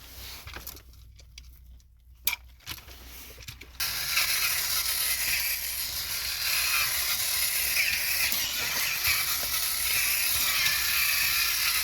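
A few light clicks, then about four seconds in the small battery motor and plastic gears of a Trackmaster Busy Bee James toy engine start running with a steady whir, the engine being test-run after repair.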